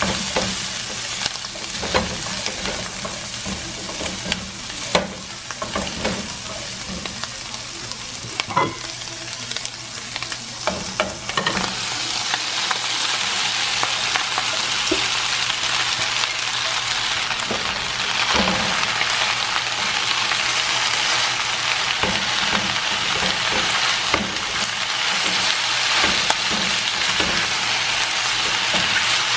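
Shrimp frying in butter in a nonstick skillet, sizzling, with a silicone spatula scraping and clicking against the pan as they are stirred. About twelve seconds in, cooked spaghetti goes into the pan and the sizzle grows louder and steadier as it is tossed.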